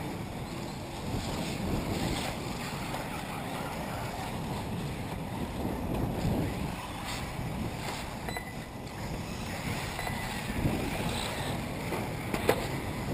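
Wind buffeting the microphone in uneven gusts, with one sharp click near the end.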